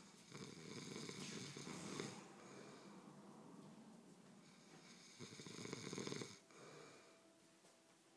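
Two long snores from someone asleep, about four seconds apart. The first comes a little after the start and lasts about two seconds; the second comes about five seconds in and is shorter. Quieter breathing is heard between them.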